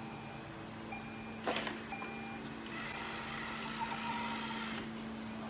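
Short electronic beeps repeating about once a second over a steady low hum, with a brief burst of noise about a second and a half in.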